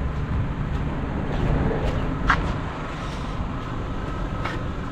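Steady low rumble of background road traffic, with a brief high squeak a little after two seconds in.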